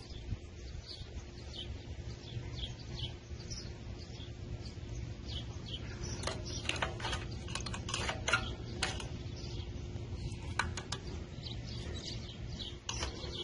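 Birds chirping, with a run of small metal clicks and clinks about six to nine seconds in as broken connecting-rod fragments are picked out of an open mower engine crankcase with a pickup tool. A low steady hum sits underneath.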